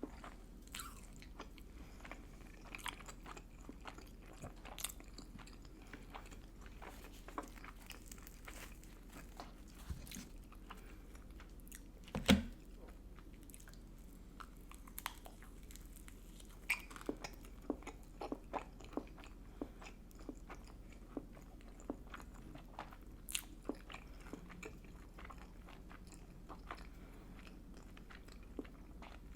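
Close-up chewing and biting of Pizza Hut food: many small wet mouth clicks and crunches at an uneven pace. One much louder knock about twelve seconds in.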